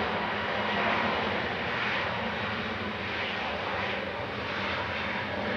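Airbus A321neo's Pratt & Whitney geared turbofan engines running as the airliner rolls along the runway: a steady jet engine noise with a faint low hum running through it.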